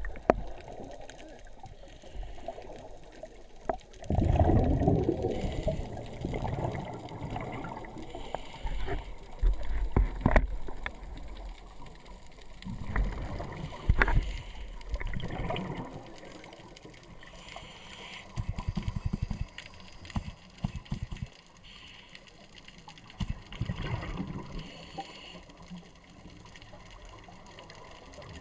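Scuba breathing heard underwater: bursts of regulator exhaust bubbles gurgling out every few seconds over a muffled water background, with a run of short clicks in the middle.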